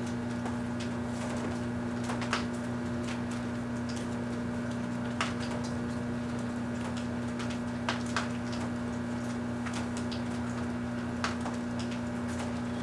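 Kenmore microwave oven running with a steady electrical hum while heating a small Christmas tree wrapped in a string of lights. About five sharp snaps or crackles break through it at uneven intervals.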